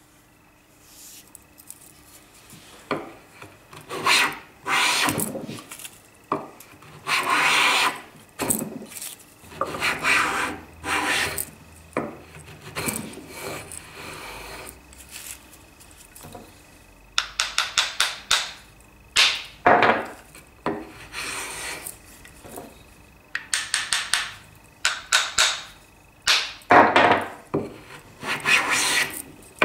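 Wooden hand plane planing the edge of a hardwood board: a series of push strokes, each a short hissing swish as a shaving comes off, with quick runs of several short strokes in a row partway through and near the end.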